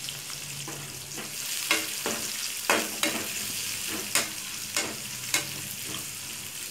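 Sliced onions sizzling as they sauté in a little hot oil in a metal kadai. A perforated metal spatula scrapes and knocks against the pan about a dozen times at an irregular pace as they are stirred.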